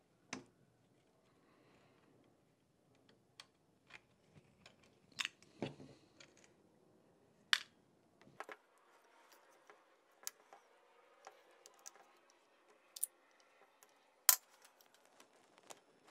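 Scattered sharp metallic clicks and clinks of hand tools and small metal parts: a screwdriver working spring clips off a Porsche G50 pedal cluster, and small parts dropped into a metal parts tray. The two loudest clicks come about halfway through and near the end.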